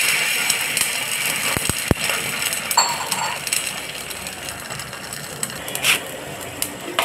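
Tempering water with mustard seeds, curry leaves and green chillies heating to a boil in a metal pan on a gas burner: a steady hiss with scattered crackles, and a few sharp clicks about two seconds in.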